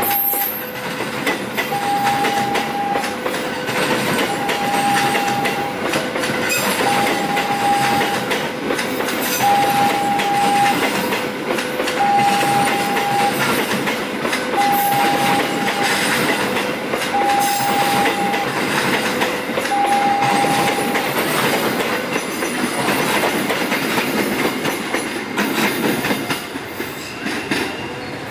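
Passenger train coaches rolling past with a steady rush and wheel clatter over the rail joints. A two-note warning tone repeats about every two and a half seconds through most of it and stops about three-quarters of the way in.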